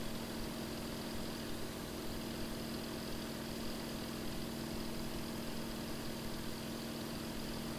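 Light propeller aircraft's engine and propeller droning steadily in level formation flight, heard from inside the cockpit as a low even hum with a faint hiss.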